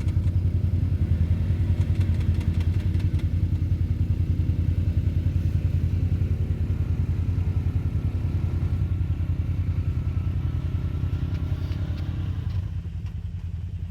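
ATV engine running steadily at low revs with a fast, even pulsing, turning quieter about twelve seconds in.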